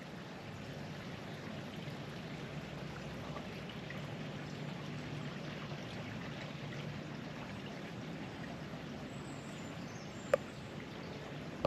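Steady rush of running water from a small stream. A single sharp click is heard about ten seconds in.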